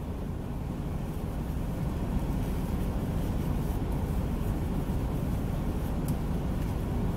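Steady low rumble of an idling semi-truck's diesel engine heard from inside the cab, with a faint click about six seconds in.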